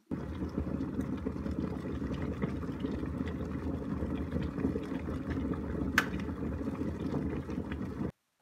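Platinum glass electric kettle at a rolling boil, a steady bubbling. About six seconds in, a single sharp click as the kettle switches itself off at the boil, and the bubbling goes on until it cuts off suddenly near the end.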